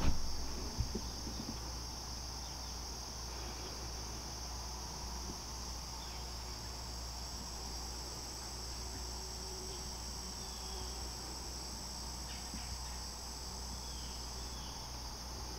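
Evening chorus of crickets, a continuous high-pitched trilling that holds steady throughout. A second, thinner and higher insect tone joins about six seconds in and stops shortly before the end.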